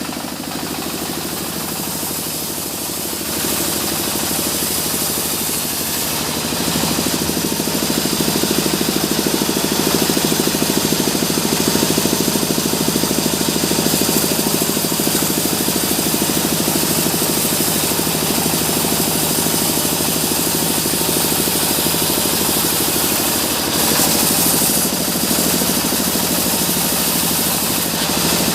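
Sawmill machinery running steadily: an engine-driven timber saw, getting louder a few seconds in, with a brief louder stretch near the end.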